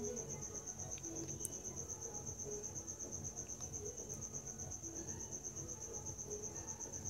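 A steady high-pitched trill, rapidly pulsing and insect-like, over faint low background noise.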